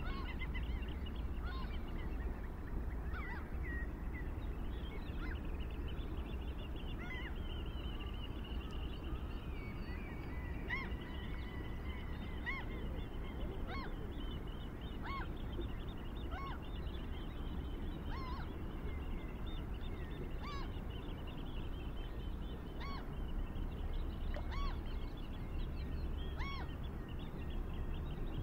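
A small dog chewing a squeaky toy, which gives short squeaks over and over, one every second or two, over a steady low background rumble.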